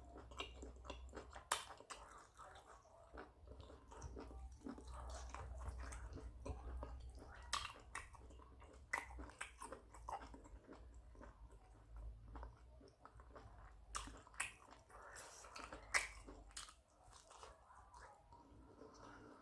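A person chewing and biting food close to the microphone, with many sharp mouth clicks and an occasional crunch.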